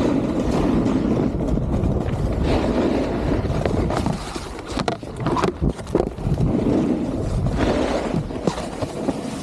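Snowboard riding on packed snow, a steady scraping hiss of the board's base and edges with wind on the microphone, broken by a few sharp knocks about halfway through.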